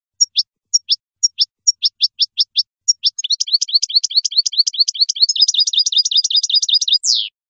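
European goldfinch song. It opens with a string of sharp, separate notes that slide downward, some in pairs, about four to five a second. From about three seconds in, it runs into a fast, rapid twittering trill, and it ends with one longer falling note.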